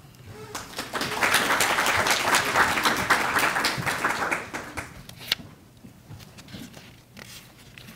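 Audience applauding in a small lecture hall. The clapping builds about a second in and dies away by about five seconds in, with a single knock just after.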